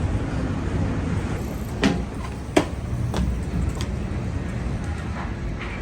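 City ambience: a steady low rumble of traffic, with a run of four short sharp clicks about two seconds in.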